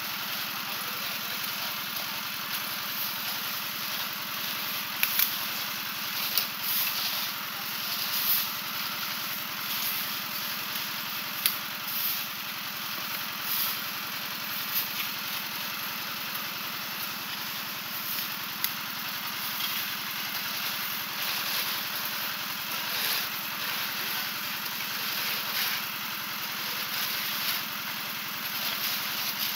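Drum concrete mixer running steadily, with short sharp clinks and scrapes now and then.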